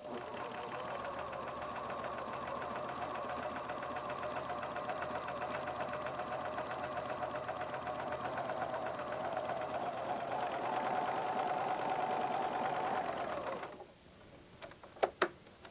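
Pfaff Hobbylock serger running steadily at speed while stitching a three-thread narrow flatlock hem. It stops abruptly about two seconds before the end, followed by two light clicks.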